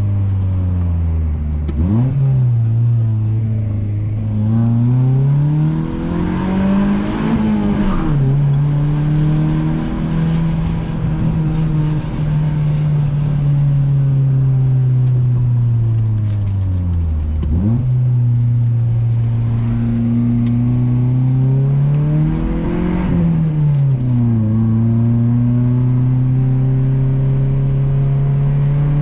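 Car engine pulling through the gears while driving. Its revs climb twice under acceleration, drop sharply at each gear change, and settle into a steady cruising note in between.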